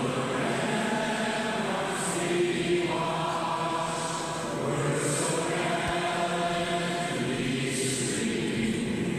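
A national anthem being sung as a slow melody, with long held notes that change about once a second.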